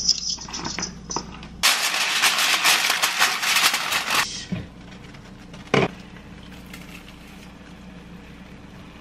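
Scallops searing in hot oil in a pan: a dense crackling sizzle begins about a second and a half in and cuts off abruptly after about two and a half seconds. A single sharp knock follows a little later.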